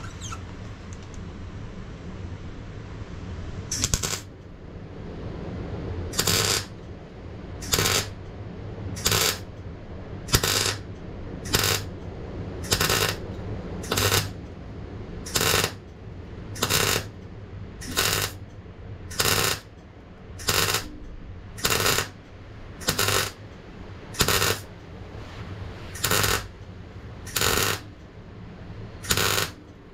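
Electric arc welding on thin sheet-steel exhaust cones, done in short stitches. A single burst comes about four seconds in, then about twenty crackling arc bursts follow, roughly one every second and a quarter, over a steady low hum.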